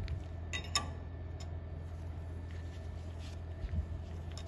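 A few small metallic clicks and taps as a 10 mm nut is threaded back onto a fork cartridge rod and snugged with a wrench, the clearest about a second in, over a steady low hum.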